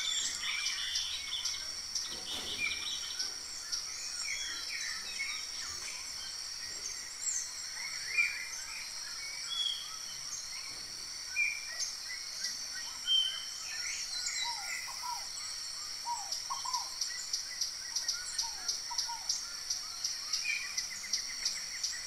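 Scattered short bird chirps and calls over a steady, high-pitched insect trill that pulses rapidly and evenly throughout.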